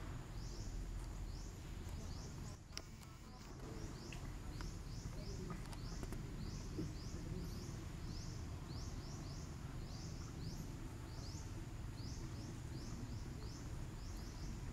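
Outdoor ambience: short, rising high-pitched chirps from a small creature repeat about twice a second over a steady low rumble.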